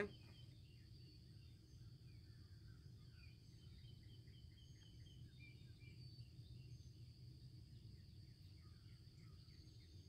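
Quiet rural ambience, which the sound meter reads at about 40 dBA: scattered faint bird chirps and a steady high insect buzz over a low background rumble.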